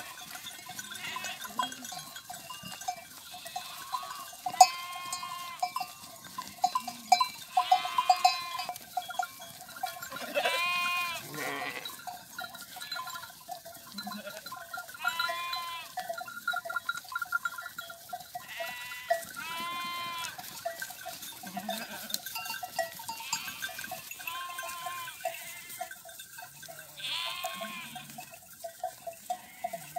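A flock of sheep bleating, separate calls from different animals every few seconds, several of them long and wavering in pitch.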